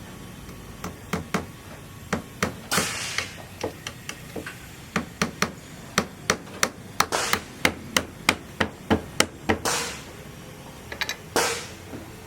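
Hammer blows on a building site: scattered strikes, then a steady run of about three to four blows a second for several seconds. A few short hissing noises come between the blows.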